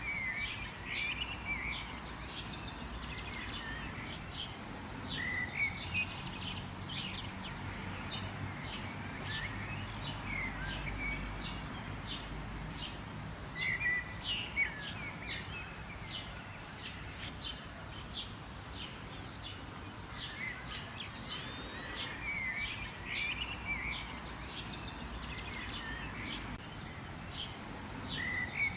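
Several birds chirping and calling at once, a dense run of short, sharp notes with a few slurred phrases among them, over a faint steady low rumble.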